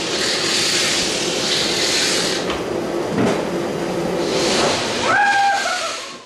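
Centrifugal honey extractors and other extraction-room machinery running: a loud, steady mechanical rush with a low hum, and a short higher-pitched sound about five seconds in.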